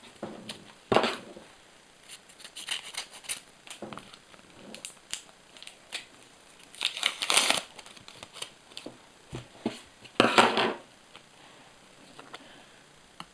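Sticker packet being opened: the paper wrapper crinkles and tears in several short bursts. There is a sharp click about a second in, and the loudest rustles come about seven and ten seconds in.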